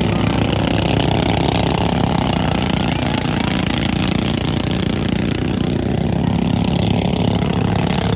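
A motor engine running steadily at a low, even speed, with a rushing noise like wind over it.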